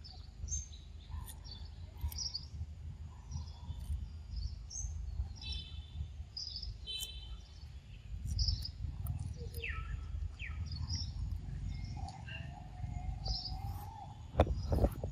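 Wild birds chirping and calling in short high notes, with a few falling whistles, over a steady low rumble; a couple of sharp clicks near the end.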